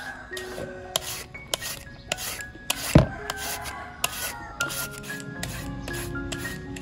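Serrated shredder peeler rasping down a peeled green mango in repeated strokes, about two a second, cutting the flesh into thin strips. A single thump about three seconds in.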